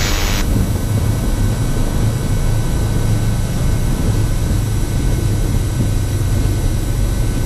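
Cirrus SR22's six-cylinder Continental IO-550 piston engine running, heard in the cockpit as a steady low drone under an even hiss.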